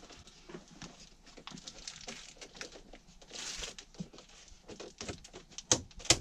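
Handling noise from a ceiling cladding board being pushed up into place against foil insulation: scattered light taps and knocks, a brief scraping rustle a little past the middle, and two sharper knocks near the end.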